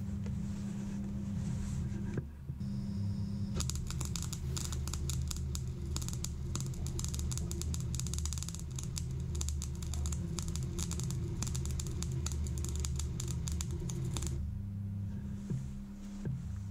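Clarke 135TE Turbo MIG welder arc welding steel box section: after a short burst a few seconds in, the arc crackles steadily for about ten seconds and stops near the end. A steady low hum runs underneath.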